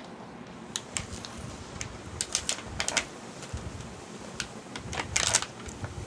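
Clear plastic packaging crackling and crinkling in short irregular bursts as hands pull it open, with a denser burst about five seconds in.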